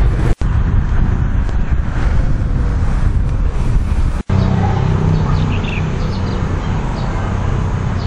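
Loud, steady outdoor rumble of wind buffeting the camera microphone, cut off briefly twice. After the second break, about four seconds in, a low hum runs under it and there are a few faint high chirps.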